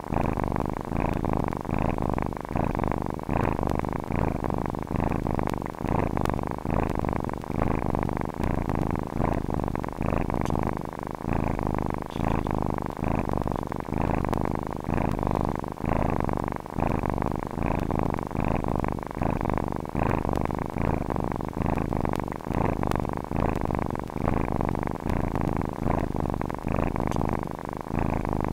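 Domestic cat purring steadily, the purr swelling and easing in an even rhythm with each breath.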